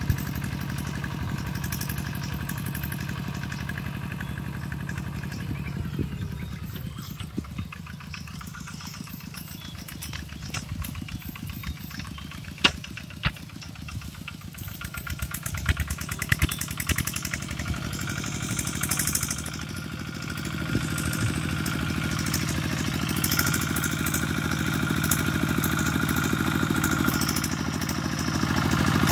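Single-cylinder diesel engine of a Kubota two-wheel walking tractor chugging steadily under load while pulling through the ground. It fades as the tractor moves away through the middle, with a few sharp clanks, then grows louder again as it comes back near the end.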